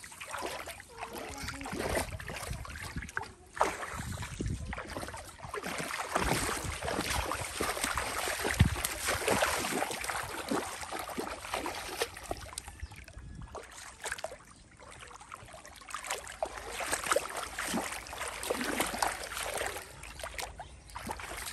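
Shallow muddy water splashing and sloshing as someone wades through it and gropes along the bottom with bare hands, with one louder splash about eight and a half seconds in.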